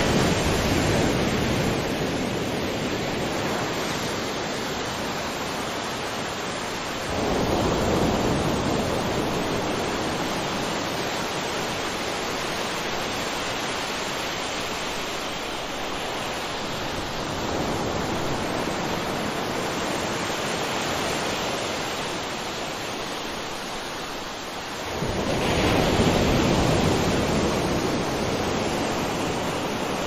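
Waterfall: a steady rush of falling water that swells in three slow surges, about a quarter of the way in, just past halfway and near the end.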